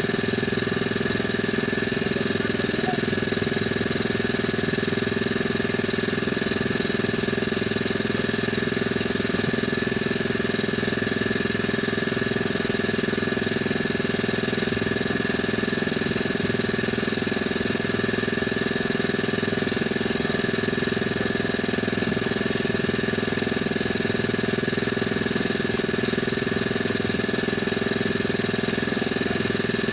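A small engine running steadily at an even idle, a constant drone with no change in speed.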